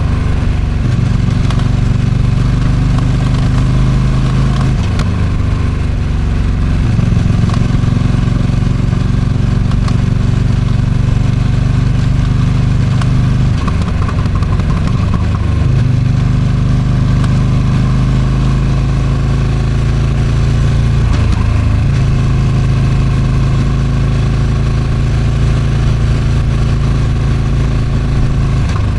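Ducati Streetfighter V2's 955 cc V-twin engine running under way through the stock exhaust, heard from onboard, with wind noise over the microphone. Its note drops and picks up again a few times, about 6, 14 and 21 seconds in.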